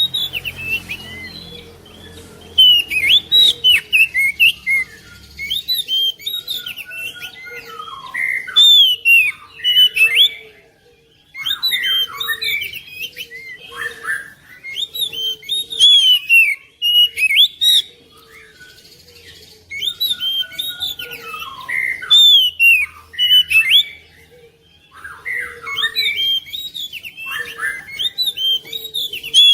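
Oriental magpie-robin (kacer) singing: rapid, varied whistles and chirps in long bursts, broken by a few short pauses.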